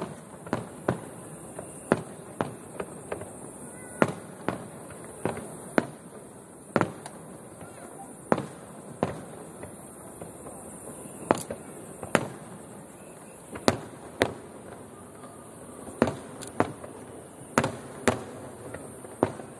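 Aerial firework shells bursting, a string of sharp bangs at uneven intervals, about one or two a second, each with a short echoing tail, over the murmur of a crowd.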